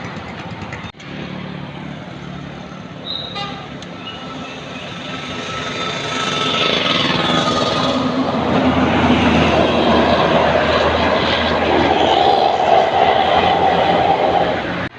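A large intercity bus passing close, its engine loud, with pitched horn tones sounding over it; it grows much louder from about six seconds in and cuts off abruptly near the end.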